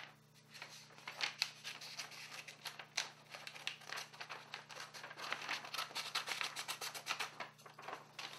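Scissors cutting through a sheet of paper: a quick irregular run of short snips, several a second, with paper rustling.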